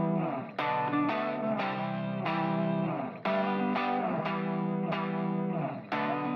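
Background music: a guitar with effects plucking a steady, regular pattern of notes.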